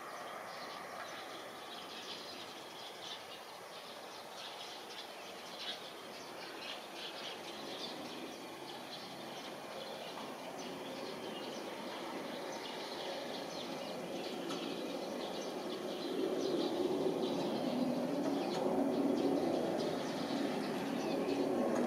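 Embraer 175 jet airliner climbing out after takeoff: a broad jet-engine rumble that grows louder over the last several seconds. Small birds chirp throughout.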